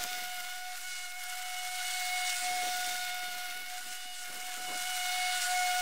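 Stiga Twinclip 950 battery lawnmower running as it mows through fallen leaves: a steady high whine over a rushing hiss.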